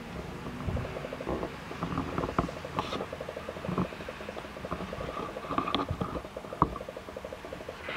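Rapid, even mechanical ticking with scattered clicks and knocks.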